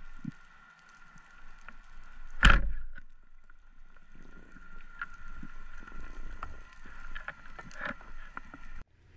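Speargun fired underwater: one sharp loud bang about two and a half seconds in, against a steady high hum and scattered faint clicks.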